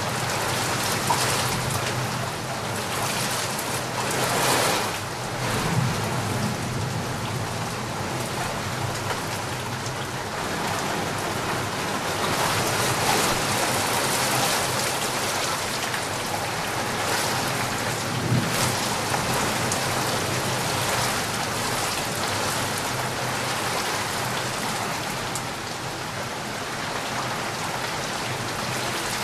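Steady rain falling, an even hiss that swells now and then, with a couple of brief low rumbles.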